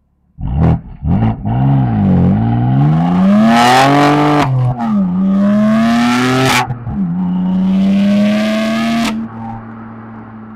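BMW M4 F82 Competition's twin-turbo inline-six exhaust under hard acceleration: a few short revs right after it starts, then the engine note climbs steadily, drops sharply at two quick upshifts about halfway and two thirds of the way through, climbs once more and then falls back to a lower, steady note as the throttle is lifted near the end.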